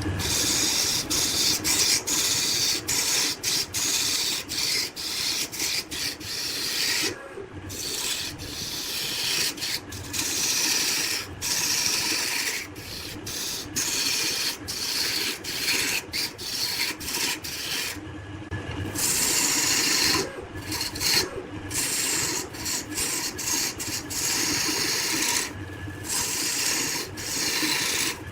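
Wood being turned on a lathe, a tool scraping against the spinning workpiece. The scraping stops and restarts many times in short breaks.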